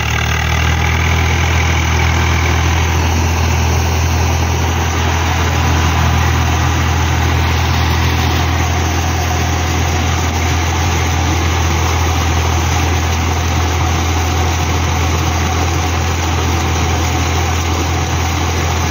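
Swaraj 744 FE tractor's three-cylinder diesel engine running steadily under load as it drives a rotavator through a flooded paddy field.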